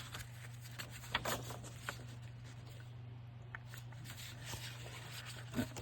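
Sheets of paper being handled and shuffled together, with a few soft rustles and light taps, over a steady low hum.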